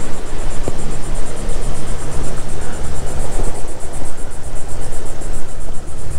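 Boat motor running steadily as the boat travels along, a low hum under a constant rush of noise.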